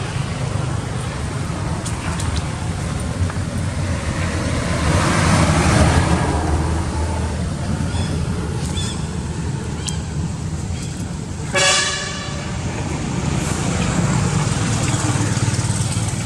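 Steady traffic rumble from nearby road vehicles, swelling louder about five seconds in, with one short vehicle horn toot about two-thirds of the way through.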